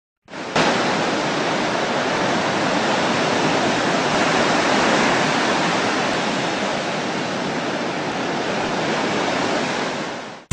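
Steady rushing of sea surf. It comes in quickly at the start, holds evenly for about ten seconds, then cuts off suddenly.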